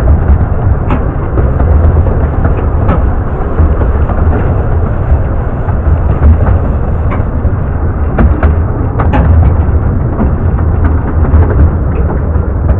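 Loud, steady running noise of a narrow-gauge steam train heard from its carriage, with heavy wind rumble on the microphone and a few irregular sharp clicks.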